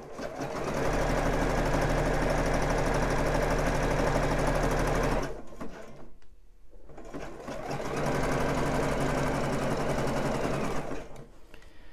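Juki computerised sewing machine stitching elastic onto fabric. It runs in two stretches, about five seconds and about three and a half seconds long, each building up to a steady stitching speed, with a pause of about two seconds between them.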